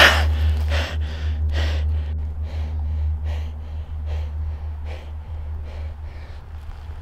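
A man gasping and panting hard, out of breath, about two breaths a second, growing fainter. A steady low rumble runs underneath.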